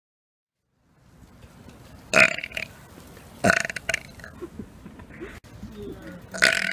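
After about a second of dead silence, a person burps loudly three times: about two seconds in, again about three and a half seconds in, and near the end.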